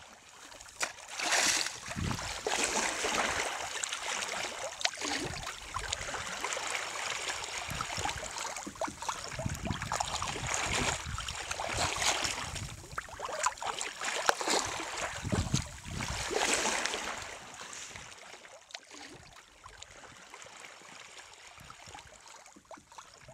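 Sea water rushing and splashing along the hull of a wooden sailing lugger under way, in irregular surges every second or two, dying down somewhat for the last few seconds.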